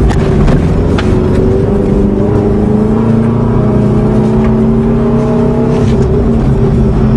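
Subaru flat-four boxer engine pulling the car along under way. Its pitch climbs steadily for several seconds, then drops near the end.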